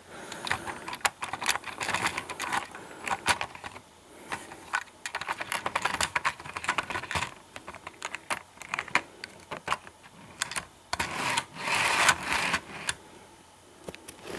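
Plastic model railway coaches being handled and set onto the track: a run of irregular light clicks and clatters as wheels and couplings knock against the rails, with a few short scraping, rustling stretches.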